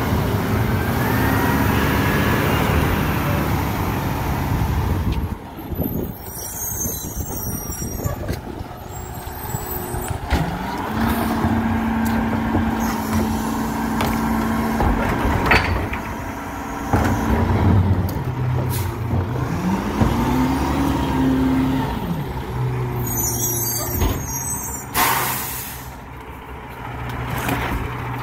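Garbage truck's diesel engine running, revving up, holding high for a few seconds and dropping back, twice. There is a short blast of air hiss near the end.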